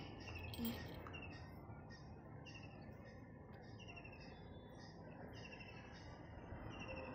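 A small bird chirping over and over in the background: short, high, falling chirps, a little more than one a second, over a faint hiss.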